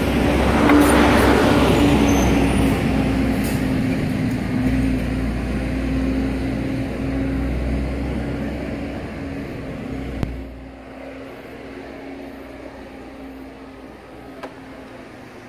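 A large road vehicle's engine running close by: a steady hum over a low rumble, loudest about a second in and fading gradually, then dropping off noticeably about ten seconds in.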